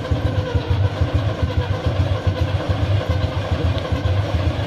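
Class 04 diesel shunter's Gardner eight-cylinder engine running with a regular low beat, just started from cold after months standing unused.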